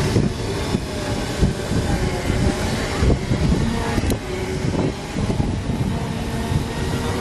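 Segway personal transporter's electric drive motors whining steadily as it rolls along, over a rough rumble of wind on the microphone.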